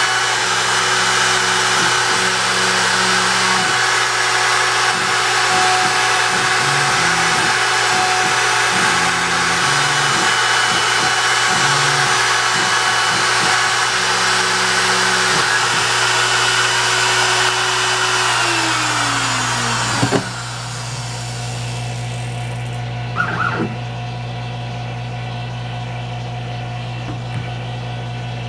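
DIY CNC router spindle running at speed while its bit cuts lettering into a wooden sign, with the stepper motors whining in short stepped bursts as the gantry moves. About two-thirds through, the spindle's pitch falls as it winds down, there is a click, and a quieter steady hum carries on.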